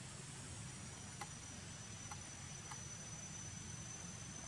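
Insect drone: a thin, steady, high-pitched tone that comes in under a second in and holds, over a faint outdoor hiss, with a few faint clicks.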